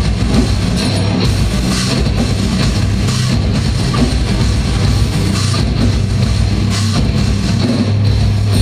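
Heavy metal band playing live: guitars and a drum kit, loud and steady.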